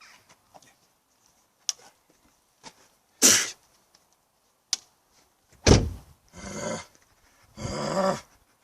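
A few sharp clicks and a short hiss, then a loud thump about halfway through. Two drawn-out wordless cries follow.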